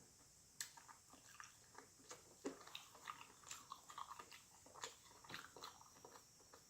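Faint, close-miked chewing of fried catfish: soft, irregular wet clicks and smacks, several a second.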